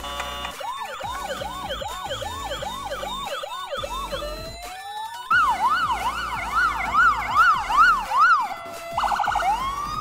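Electronic ambulance siren cycling through its patterns. It starts with a rapid rise-and-fall yelp of about three sweeps a second, then glides up into a louder, sharper up-and-down yelp about five seconds in. A brief rapid stutter comes near the end, then another rising tone.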